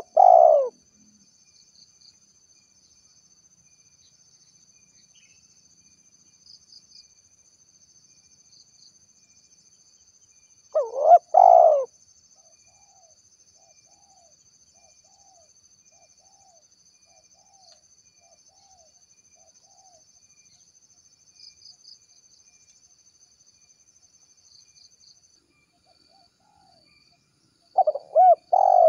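Spotted dove cooing: three loud call phrases about ten seconds apart, each a quick run of a few notes lasting about a second. After the second phrase comes a faint string of softer notes.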